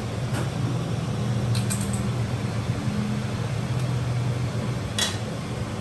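Steady low hum of a kitchen appliance fan, with a few light clicks.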